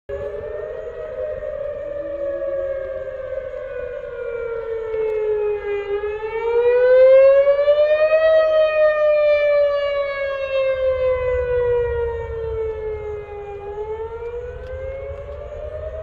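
Outdoor tornado warning siren wailing: its pitch slides slowly down for several seconds, rises to a peak about eight seconds in, falls again and starts to rise near the end. It is loudest around the peak, with a low rumble beneath it that grows in the second half.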